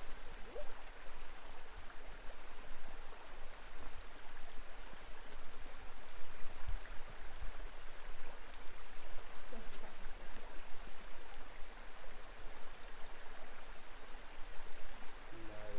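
A small creek running shallow over stones and cobbles, a steady rushing babble.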